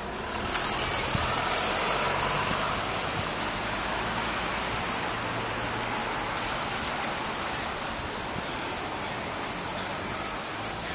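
Floodwater rushing steadily, a little louder for a couple of seconds near the start.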